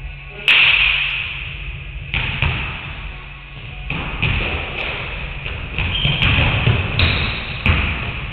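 Basketballs bouncing on a wooden gym floor: about ten irregular thuds, the loudest about half a second in, each ringing on in the big hall's echo.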